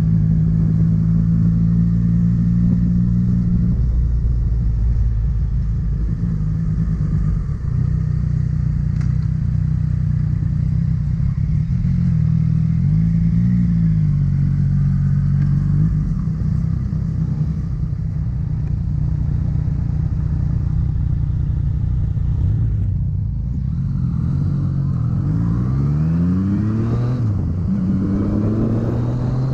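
Motorcycle engine running while riding, heard from a camera mounted on the bike, mostly at a steady pitch. Near the end it revs up repeatedly as it accelerates through the gears.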